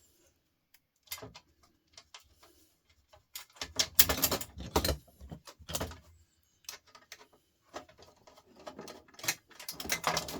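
Clicks, scrapes and clinks of a screwdriver and small metal parts being handled while a record player is taken apart. They come at irregular intervals, with a denser clatter about four seconds in and again near the end.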